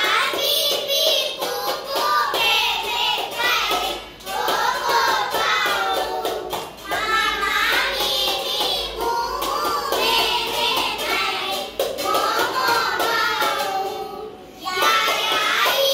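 A group of children singing rows of Tamil alphabet letters to a tune, line by line with short breaks between phrases.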